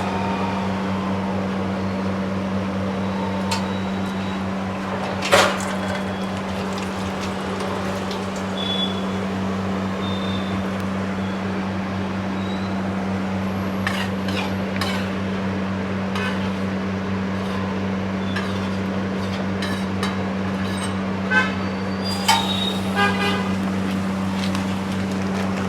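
Metal utensils clanking on a pav bhaji griddle over a steady low hum: a few scattered ringing strikes, with a quick cluster near the end.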